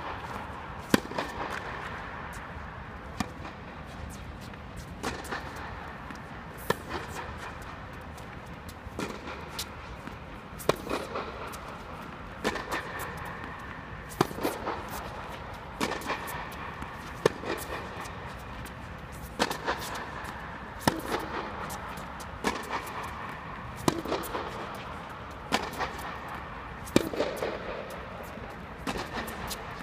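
Tennis ball being struck by rackets in a rally: sharp hits every second or two.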